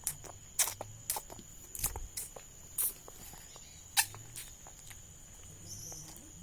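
Wet smacking clicks of a baby's mouth sucking and chewing watermelon, irregular, roughly one every half second, the loudest about four seconds in, then thinning out.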